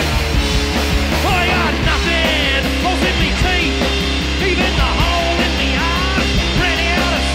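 Punk rock played from a vinyl record: a full band with distorted guitars, bass and drums, and vocals coming in about a second in.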